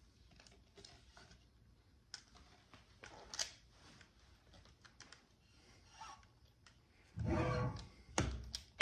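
Faint clicks and taps of a handmade short-scale five-string electric bass being handled and turned over. Near the end a low note from the plugged-in bass rings for under a second, followed by a sharp knock.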